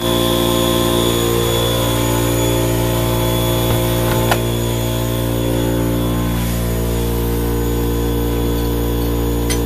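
Steady, loud machine drone from running snowmaking equipment: a low hum made of several steady tones that does not change. A sharp click comes about four seconds in and another near the end.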